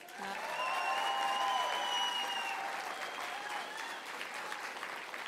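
Conference audience applauding, easing off slightly toward the end. Someone in the crowd lets out a long held cheer in the first two seconds or so.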